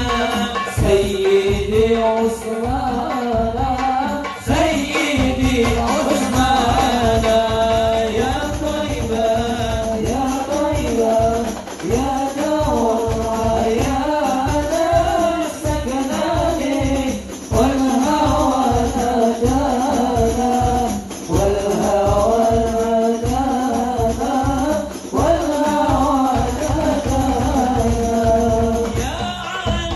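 Arabic devotional song (sholawat qasida) sung over a steady, dense beat of hand-struck frame drums (rebana).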